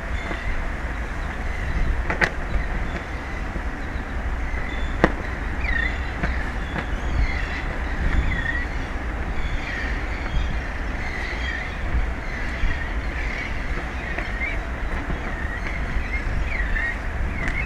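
Underwater sea noise picked up by a hydrophone: a steady low rumble with a few sharp clicks and, from about six seconds in, many short, wavering chirps.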